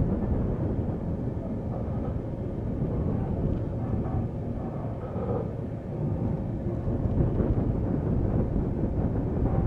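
Passenger train rumbling steadily along the track as it arrives at a station, with a faint whine about four to five seconds in.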